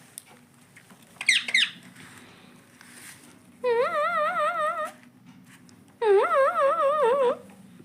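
Indian ringneck parrot giving two quick, sharp squawks about a second in, then two longer wavering, warbling whistled notes, each a little over a second long.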